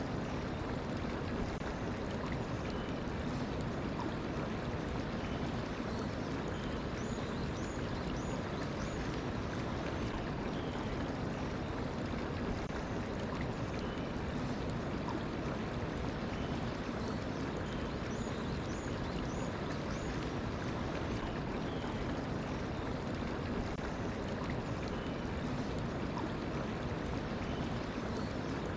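Mountain stream flowing steadily, a continuous rush of water. Over it a bird gives short, high chirps in quick runs of four or five, a few times.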